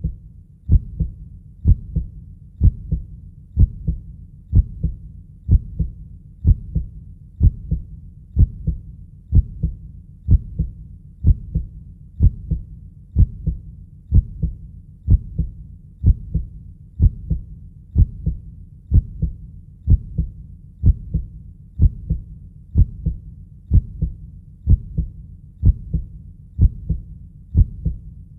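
Heartbeat sound: a steady lub-dub, deep paired thumps repeating at an even pace of about 60 beats a minute.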